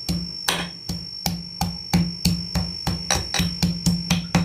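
Raw turmeric root being pounded, with regular sharp strikes about three a second.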